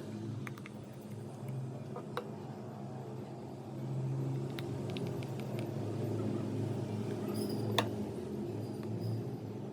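A steady low hum with a few sharp clicks and taps scattered through it, the loudest near the end.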